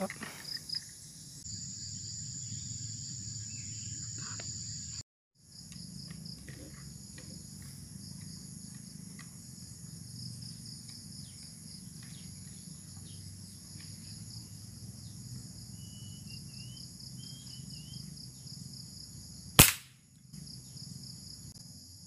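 Steady high insect chirring with a few faint bird chirps, then near the end a single sharp crack of an air rifle shot taken at a sooty-headed bulbul.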